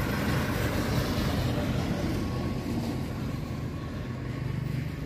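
A tractor's diesel engine running steadily, a low even hum.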